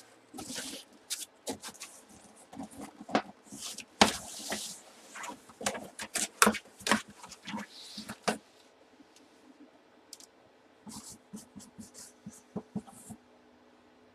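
Cardboard box being handled by hand, with many short knocks, taps and rustles for the first eight seconds or so. Then it goes quieter, with a few short faint scratches of a marker on the cardboard near the end.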